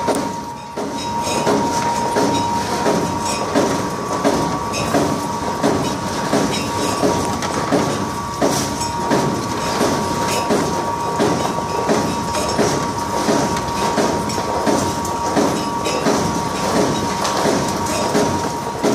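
Yuvalama dough-ball forming machine running with a steady rhythmic clatter, about two beats a second, over a constant high whine.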